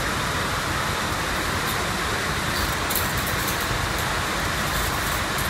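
Steady rushing background noise with no rhythm, with a few faint light ticks.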